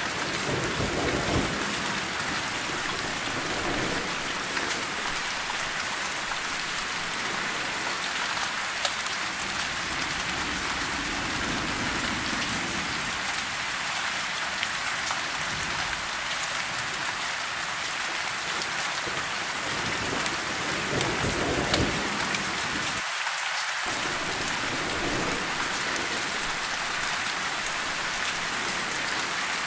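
Steady rain falling on leaves, an even hiss of drops, with low rumbles of distant thunder swelling and fading underneath several times.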